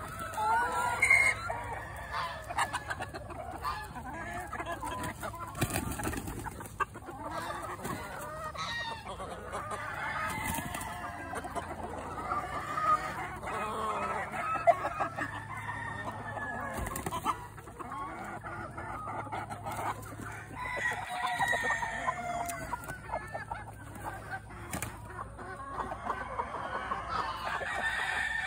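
A flock of hens and roosters clucking and calling over one another without a break, with a rooster crowing among them.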